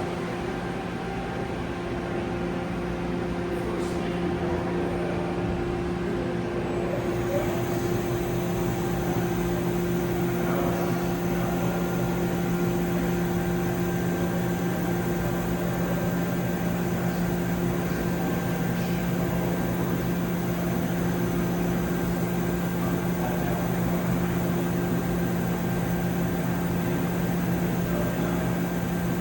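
Hurco TM6H CNC lathe running under power: a steady mechanical hum with a few held tones, and a faint high whine that comes in about seven seconds in and stays.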